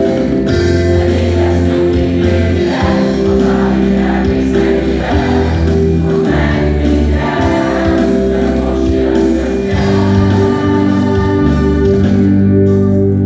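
A song with singing voices over held chords and a strong bass, loud and continuous.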